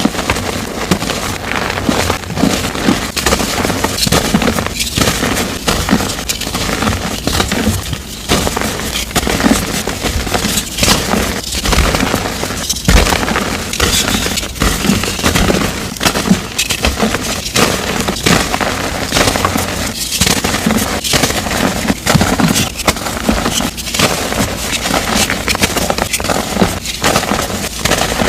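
Blocks of dyed gym chalk being crushed and crumbled, a dense run of crisp crunching and crackling, broken by a few short pauses.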